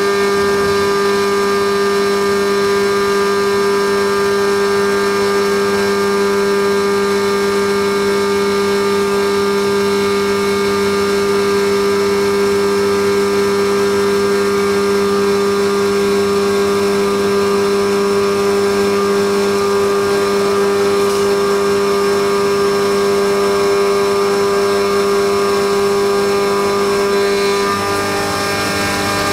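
Haas CNC milling machine running with a steady hum and whine. Near the end the main tone drops out and the sound gets a little quieter.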